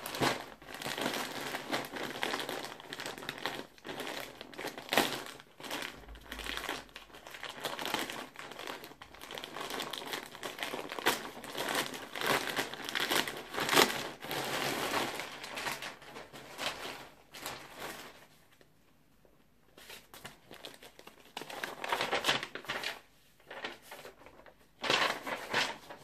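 Paper and plastic packaging crumpling and crinkling as a clothing parcel is unwrapped: a printed paper mailer torn open, then plastic garment bags handled, in irregular rustling bursts. About two-thirds of the way through the handling stops for a couple of seconds of near silence, then the crinkling resumes.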